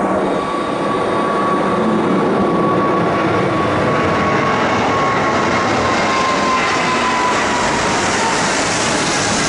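Jet engines of a Boeing 777-300ER, GE90-115B turbofans, at takeoff thrust on the runway: a loud, steady rush with a whine that slowly falls in pitch as the airliner goes past.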